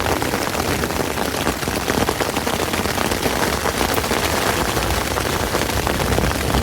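Heavy rain falling hard on the fabric of a lightweight tent, a dense patter of countless drops hitting the fly.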